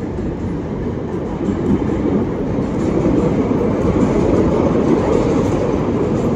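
Elevated rail train rumbling along its tracks, a steady rushing roar that builds over the first few seconds and stays loud.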